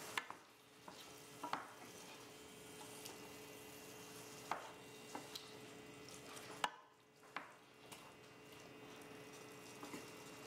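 Wooden spoon stirring chickpeas and tomato sauce in a stainless steel sauté pan, faint, with a soft sizzle and a few scattered knocks of the spoon against the pan.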